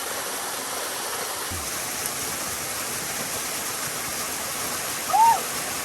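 Waterfall pouring, a steady rushing of falling water. A short rising-and-falling call sounds over it near the end.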